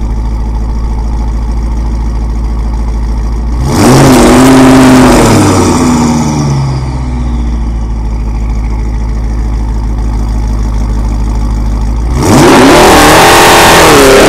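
Audi C7 S6's 4.0-litre twin-turbo V8 breathing through an AWE Touring Edition exhaust with aftermarket downpipes, idling steadily and revved twice: a short rev about four seconds in that rises and drops back over about two seconds, and a longer, held rev near the end.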